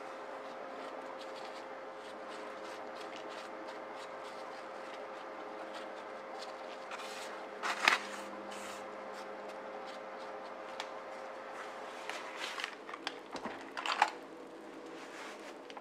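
Aluminium baking pan clacking against the counter as it is handled: one sharp knock a little before the middle, then a few light clicks and a second sharp knock near the end as the pan is set down. A steady faint hum with a thin steady tone runs underneath.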